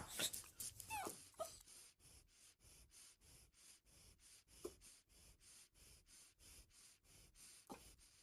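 French bulldog whimpering: a few short, high whines falling in pitch in the first second and a half, then near silence broken by two faint brief sounds.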